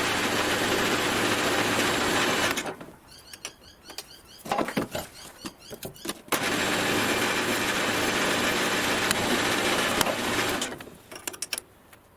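A workshop machine tool's motor runs steadily with a low hum and a hiss of cutting noise. It stops after about two and a half seconds and starts again about six seconds in, with knocks and clicks from handling the work in between.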